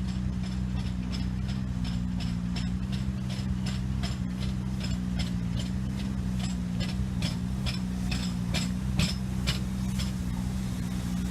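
Train moving slowly through the station: a steady low engine hum under an uneven run of sharp metallic clicks, about three a second, typical of wheels passing over rail joints or points.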